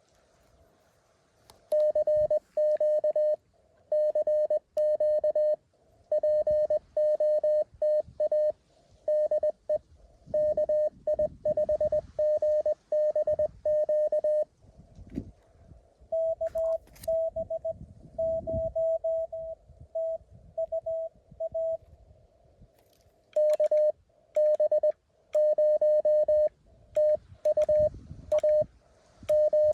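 Morse code (CW) tones from a Mountain Topper QRP transceiver, sent as dots and dashes on one steady pitch. A loud run of code lasts for most of the first half. A second, slightly higher and quieter keyed signal comes in for about five seconds, and then the loud code starts again.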